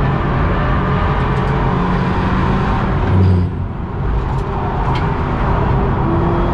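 BMW 328i F30's turbocharged four-cylinder engine running under load at track speed, heard from inside the caged cabin along with tyre and wind noise. It eases off briefly about halfway through, then pulls again.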